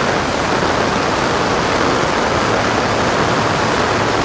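Floodwater rushing in a swollen creek: a steady, loud roar of water running hard.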